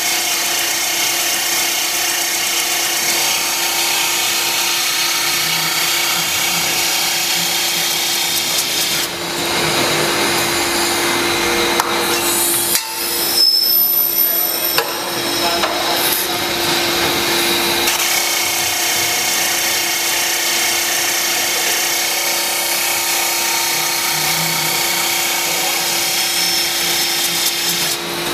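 Rotary-table surface grinder grinding the flat face of a steel circular saw blade: a steady grinding hiss over a constant hum. For several seconds midway the sound changes, with a sharp click about 13 seconds in.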